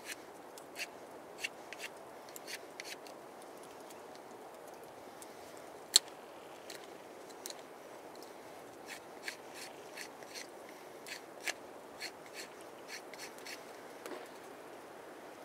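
Knife blade cutting into a small wooden stick in short, sharp strokes at an irregular pace, with a gap in the middle and one much louder snick about six seconds in. Under the strokes runs a steady soft hiss.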